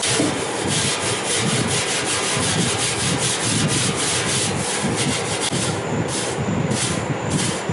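Abrasive pad scrubbing the rusty steel deck of a vintage Rugg mower in quick back-and-forth strokes, cleaning it up ahead of clear coat. Near the end, broom bristles sweep over the deck in separate strokes.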